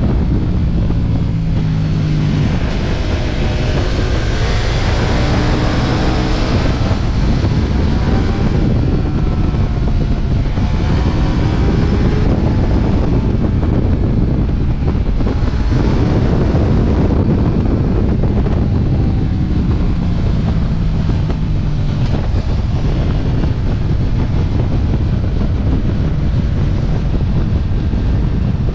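Ducati Multistrada V4 S's V4 engine running under way, its note rising several times as the rider accelerates out of curves, half buried under heavy wind buffeting on the microphone.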